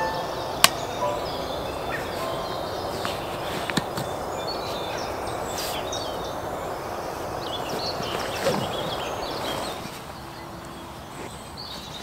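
Outdoor ambience: a steady rushing background noise with birds chirping here and there. There is a sharp click about half a second in and another near four seconds. The rushing noise drops away about ten seconds in.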